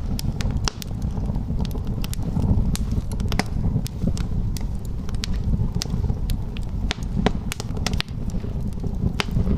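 Wood fire burning in a fireplace: frequent irregular crackles and sharp pops over a steady low rumble of the flames.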